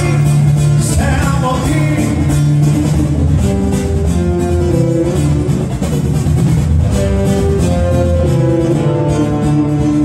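Live acoustic music: a man singing to two guitars, strummed chords under a picked melody line. The voice is plain for about the first two seconds, then the guitars carry a stepwise melody.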